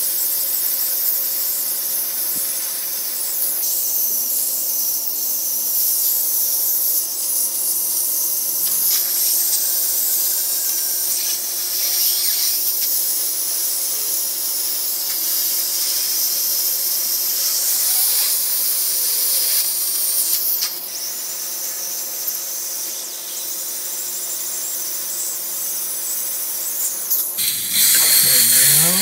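Dental handpiece running steadily as it polishes leftover bracket glue off the teeth after braces removal, with a steady high hiss of air and water spray and a suction tube in the mouth.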